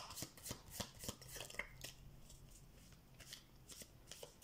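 A deck of tarot cards being shuffled overhand, one hand pulling cards off the deck held in the other. It makes a soft run of card flicks and slaps at about four a second, thinning out in the middle.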